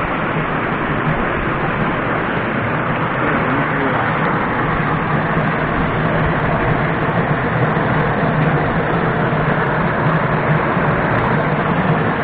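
Mountain stream rushing over rocks in a small cascade, a loud, steady roar of white water, with wind buffeting the microphone.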